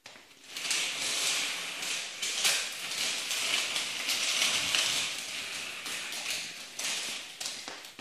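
Small plastic wheels of a toy doll stroller rolling across a ceramic tile floor: a steady rattling hiss with scattered light clicks, starting about half a second in and fading near the end.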